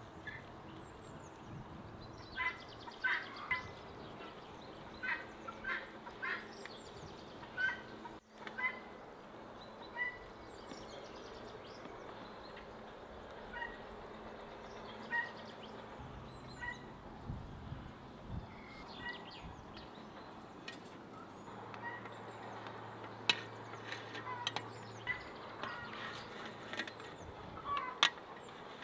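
Farmyard poultry calling in short repeated calls, with small birds chirping faintly higher up. A few sharp clicks come near the end.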